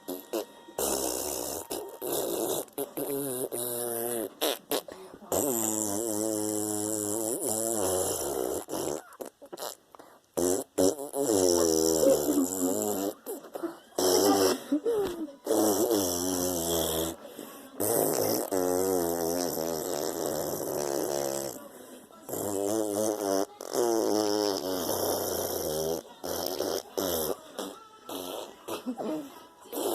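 A run of about a dozen fart sounds, one after another, each lasting one to a few seconds with a wavering pitch and short pauses between them.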